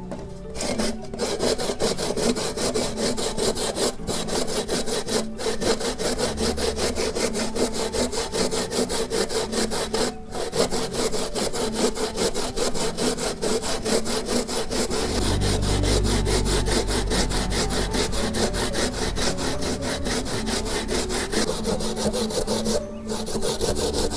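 Coconut flesh being grated by hand on a flat metal grater: fast, even rasping strokes with a few brief pauses.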